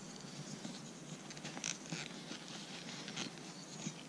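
Faint handling noise of a plastic GoPro Quickclip being worked onto a cloth baseball cap: light scratching and rubbing with a few small clicks.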